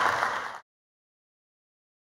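Audience applauding in a lecture hall, cut off abruptly about half a second in and followed by dead silence.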